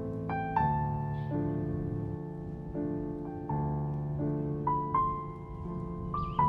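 Slow, gentle piano music: single melody notes struck about once a second over sustained chords, each note ringing and fading.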